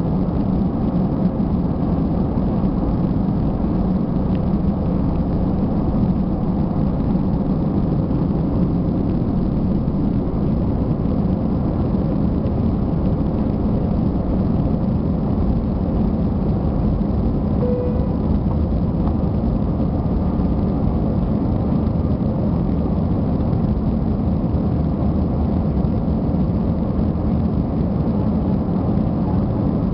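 Airbus A320's twin jet engines running steadily at takeoff power, heard from inside the passenger cabin as a steady low roar through liftoff and the initial climb.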